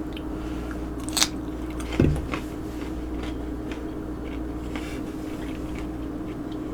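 Close-miked mukbang eating sounds: a person biting and chewing seafood-boil food, with small wet clicks. There is a sharp click about a second in and a low thump near two seconds, over a steady low hum.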